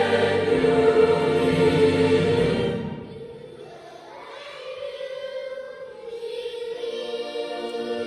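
Choir singing; the full sound drops much softer about three seconds in, then builds again toward the end.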